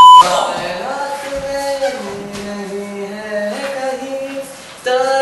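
A loud censor bleep at the very start, then a Hindi song: a voice singing long, slowly gliding notes over soft backing music.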